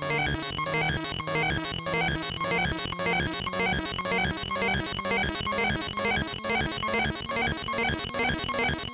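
Synthesizer music with a steady pulse about twice a second over a bass line that steps slowly upward.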